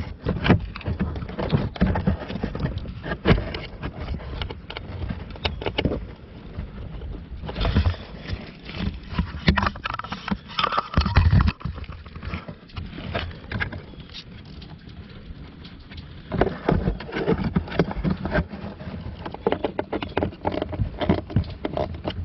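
Irregular clicks, knocks and rustling of hands working screws into a car's plastic blower motor housing under the dashboard, with a louder thump about eleven seconds in.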